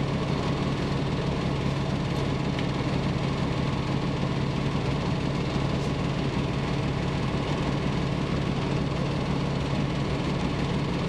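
Rotax four-cylinder engine of a Van's RV-12 light-sport aircraft idling steadily with the plane standing still, heard from inside the cockpit.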